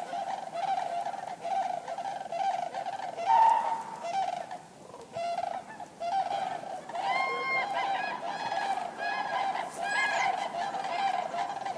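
A flock of common cranes calling, with many overlapping calls. A louder call stands out about three seconds in, and clearer, higher calls stand out from about seven seconds on.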